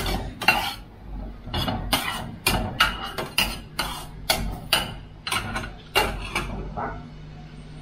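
Spatula knocking and scraping against a pot while stir-frying aromatics in oil, about two or three strikes a second, stopping about seven seconds in. A kitchen extractor hood hums steadily underneath.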